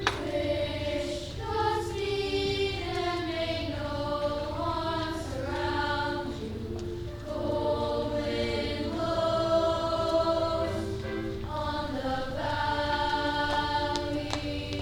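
Youth choir singing a traditional Czech song in several parts, holding long notes, with piano accompaniment.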